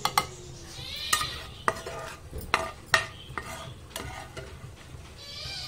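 A spoon stirring and scooping fried nuts out of a pan, knocking and scraping against the pan about seven times, over a faint sizzle of frying.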